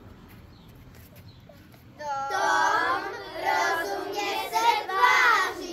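Children singing, starting about two seconds in after a quiet stretch.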